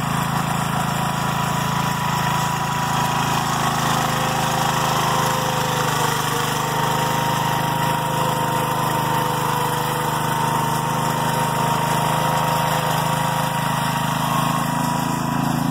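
1983 Wheel Horse C145 garden tractor's single-cylinder Kohler engine running steadily under load as the tractor pulls a moldboard plow through sod, with a thin steady whine above the engine note.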